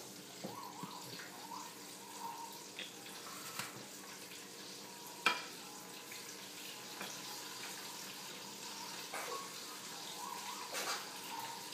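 Chicken strips frying in a deep fryer: a steady low sizzle of hot oil, with a few light clicks and taps over it, the sharpest about five seconds in.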